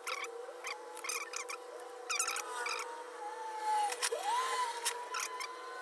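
Clicks and light knocks of an air-conditioner circuit board and its plastic housing being handled on a workbench, over a faint steady hum. A thin wavering tone runs underneath, dipping and rising about four seconds in.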